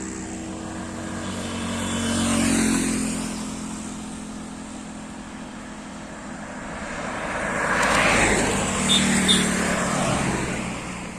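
Motorcycle engine running with road and wind noise while riding, swelling louder twice.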